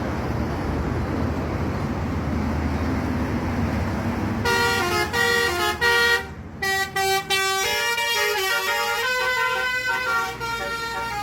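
Bus engine and road rumble, then about four and a half seconds in a Basuri telolet multi-tone horn starts playing a quick tune of short, changing notes, several horn tones sounding together.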